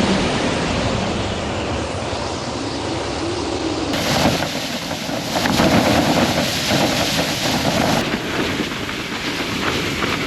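Strong blizzard wind gusting hard against the microphone, a steady loud rushing with no rhythm. Its character changes abruptly about four and eight seconds in.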